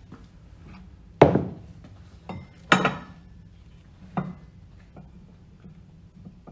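Four separate metal knocks and clinks from the cast-iron Grundfos NBS pump housing and cover as they are handled during dismantling. The loudest comes near the middle and rings briefly.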